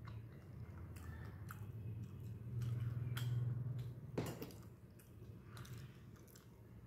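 A person chewing a mouthful of rice and fish curry close to a lapel microphone, with small wet mouth clicks. A low hum underneath grows louder in the middle, and there is one sharp click at about four seconds.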